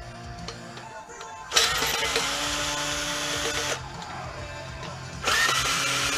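Ryobi cordless drill/driver spinning screws out of a sheet-metal bracket in two runs of about two seconds each. The second run starts about five seconds in.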